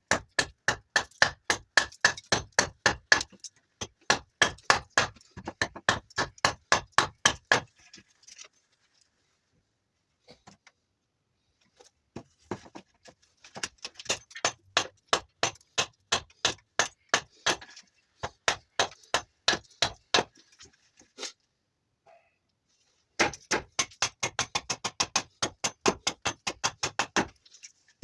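Small axe chopping and hewing juniper wood in quick runs of sharp strikes, about four a second, stopping twice for a few seconds between runs.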